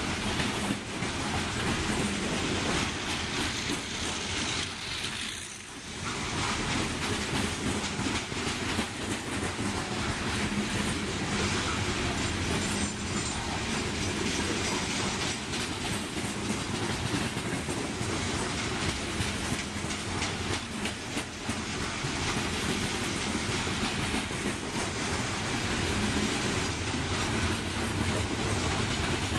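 Open-top coal hopper cars of a slow freight train rolling past, steel wheels clicking over the rail joints with a steady rumble. There is a brief lull about five seconds in.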